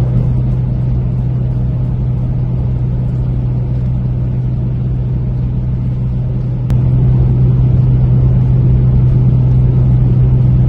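Steady low rumble and drone of a car driving at highway speed, heard from inside the cabin. A click about two-thirds of the way through, after which the rumble is a little louder.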